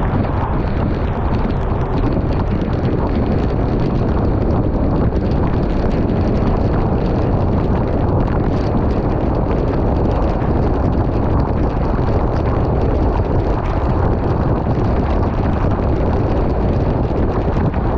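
Heavy rain hitting a car's windshield and roof while driving on a wet road: a steady, dense patter.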